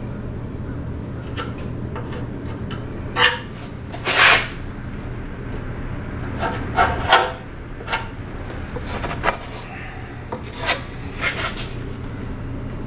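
Irregular short scraping and rubbing strokes, about a dozen, bunched around a few seconds in and again near the middle, over a steady low hum: hand body work on the car's panels, such as working body filler.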